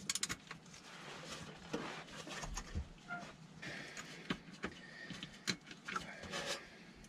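Hand tool working the SMG gearbox drain plug tight, with scattered faint metallic clicks and taps at irregular intervals.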